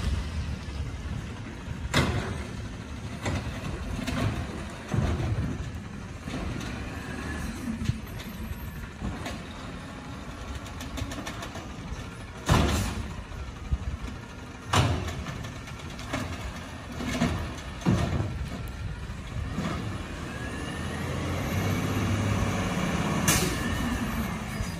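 Automated side-loader garbage truck running at idle while its arm lifts and empties carts, with several sharp bangs as the carts are shaken out over the hopper. Near the end the engine grows louder as the truck pulls ahead.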